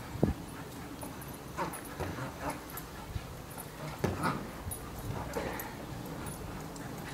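Jack Russell terrier giving short whimpers and yips while playing with a football. A single sharp knock comes just after the start.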